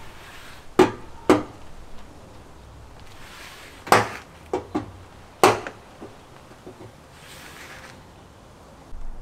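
Six sharp knocks on an Ironman 4x4 snorkel body as it is struck and pressed by hand to seat it on the vehicle's A-pillar: two about a second in, then four more a few seconds later, with faint rustling of hands on the snorkel between them.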